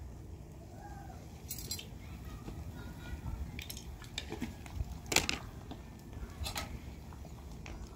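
Metal spoon clinking against a cooking pan: several short, sharp clinks, the loudest about five seconds in.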